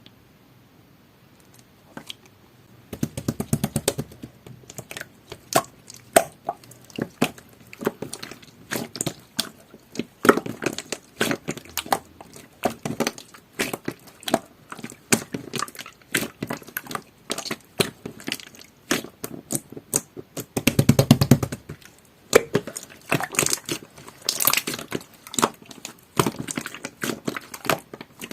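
Hands squeezing, stretching and poking jelly-textured slime: quick wet clicks, pops and squishes, starting about three seconds in, with louder spells of squishing around then and again about twenty-one seconds in.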